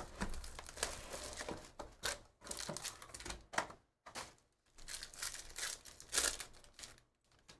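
A foil trading-card pack wrapper crinkled and torn open by hand: a run of short rips and rustles that stops about seven seconds in.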